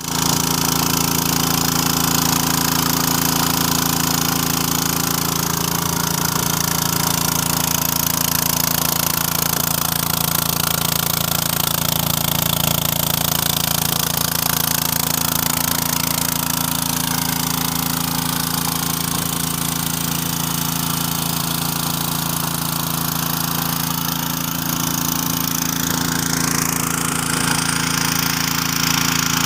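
Petrol-engine fire pump running steadily at a constant pitch, with the hiss of a big-gun impact sprinkler's water jet over it.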